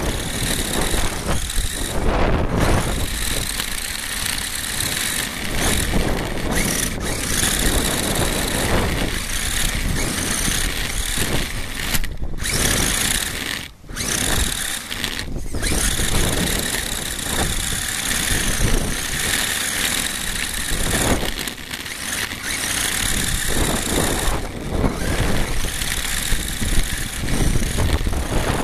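HSP radio-controlled car driving fast on asphalt, heard from a camera riding on its chassis: loud road and wind noise from the tyres and air, with a high motor whine that rises and falls with speed. The noise dips briefly three times around the middle.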